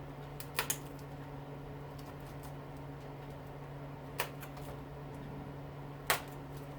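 Sharp clicks of hand tools working on a dishwasher motor's windings: a quick pair about half a second in, then single clicks at about four and six seconds. A steady low hum runs underneath.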